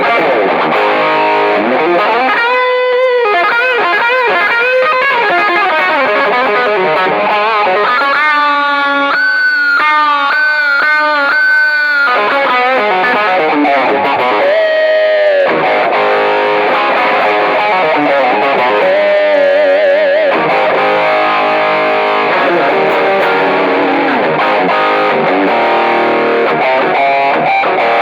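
Westcreek Helios electric guitar played through two stacked overdrive pedals: distorted playing that runs without a break, with held notes wavering in vibrato several times.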